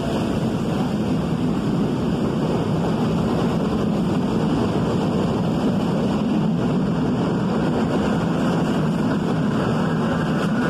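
New York City subway train running past alongside the platform: a loud, steady rumble of the cars rolling over the rails.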